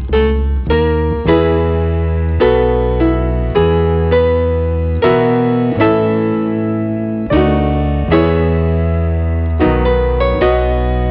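Background music: a keyboard, piano-like, playing slow sustained chords with a new note about once a second over held bass notes.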